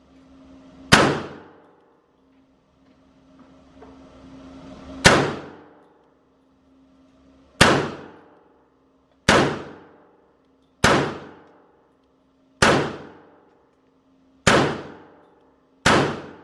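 Kel-Tec PMR30 .22 Magnum pistol fired eight single shots. The first two come about four seconds apart, then about one every one and a half to two seconds. Each shot is a sharp crack with a short ringing echo tail from the indoor range.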